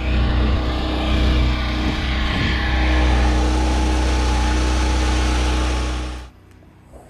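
Portable gas generator running steadily with a low, even hum and a broad hiss over it. The sound cuts off abruptly about six seconds in.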